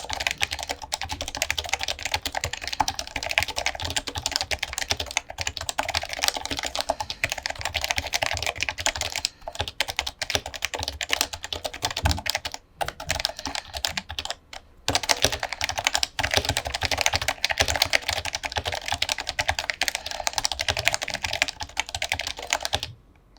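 Fast, continuous typing on a Leopold FC660C keyboard with lubed 45 g Topre switches and dye-sublimated PBT keycaps: a dense stream of key strokes with a few short pauses near the middle. The typing stops just before the end.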